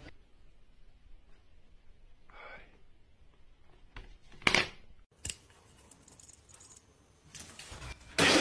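A plastic basket clatters sharply once as a cat leaps in it, with a shorter click just after, over faint handling noise in a quiet room.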